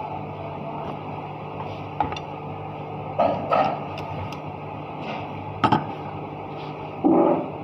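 Several sharp metallic knocks and clinks, as of tools striking or being set down on metal parts during machine repair work, over a steady hum.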